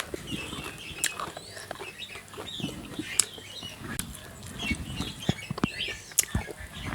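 Close-up eating sounds: chewing with sharp mouth clicks and smacks, with birds chirping in the background.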